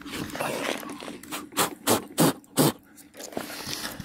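A hand brushing snow off a car's plastic grille and LED light bar: a series of short, quick swishing strokes.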